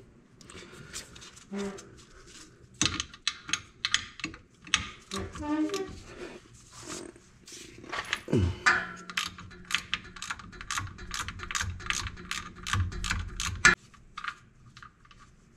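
Ratchet clicking in a string of quick strokes as a plug on the rear differential of a 2021 Mustang Mach 1 is backed out. The clicks start a few seconds in, settle into an even rhythm of about three a second, and stop near the end.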